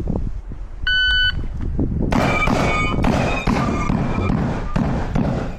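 Electronic shot-timer beep about a second in, then a rapid string of shotgun shots starting about two seconds in, each followed by the ring of steel targets being hit.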